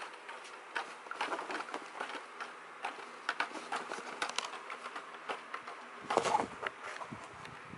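Rustling and crinkling of a cloth tote bag as a dachshund noses and paws into it, a dense run of small crackles, with a louder burst of rustling about six seconds in.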